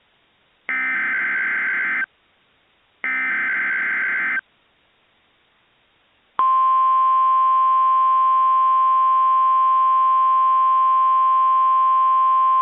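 Emergency Alert System activation in NOAA Weather Radio style. Two warbling bursts of SAME digital header data, each about a second and a half long and a second apart, are followed by two seconds of near silence. Then, about six seconds in, a loud steady 1050 Hz weather radio warning alarm tone begins, heralding a special marine warning.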